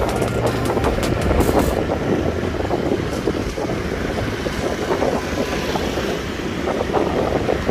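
Wind rushing over the microphone with the steady noise of city street traffic, heard from a moving motorbike.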